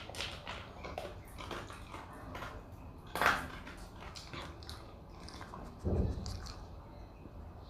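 Dachshund chewing dry kibble: irregular crisp crunches, with a louder crunch about three seconds in and a dull thump about six seconds in.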